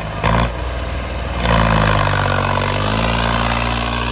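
Tractor diesel engine revving up about a second and a half in and then held at high revs, its pitch rising and falling.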